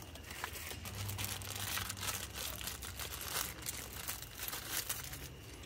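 Plastic packaging crinkling and rustling as it is handled, a dense run of quick, light crackles.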